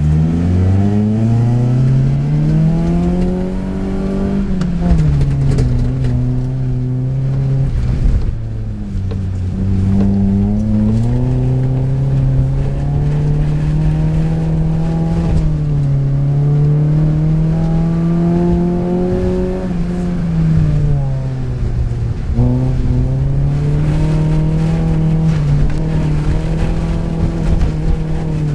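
Vauxhall Corsa 1.4's four-cylinder petrol engine heard from inside the cabin, pulling away from a standstill and revving hard. Its pitch climbs and drops several times as the car accelerates, lifts and changes gear on a loose, wet sand course, with a steady hiss of tyres and spray underneath.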